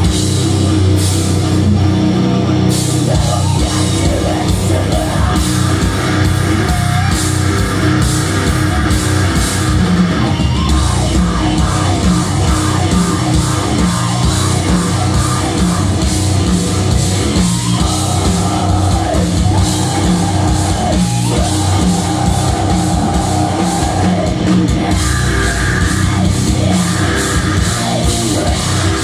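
Heavy metal band playing live through a concert PA: distorted electric guitars, bass and a drum kit, with a vocalist singing over them.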